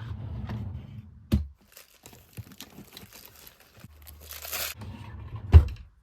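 Crinkling and rustling of packaging being handled, with scattered light clicks, a knock about a second and a half in and a louder knock near the end.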